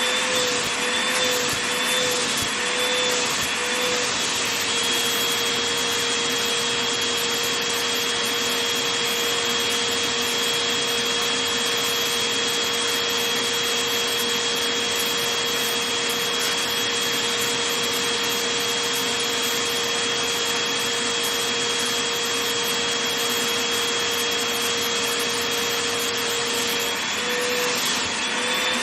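Vacuum cleaner running with a steady whine over a rushing hiss while it is worked over a blanket. The whine wavers in pitch about twice a second for the first few seconds and again briefly near the end, then holds steady.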